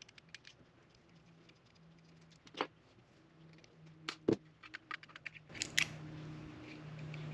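Small clicks and light scrapes of a tiny screwdriver backing a screw out of a small plastic alarm unit, then the battery cover being pried off. The two loudest clicks fall about two and a half and four seconds in, with a run of lighter clicks near the end over a faint low hum.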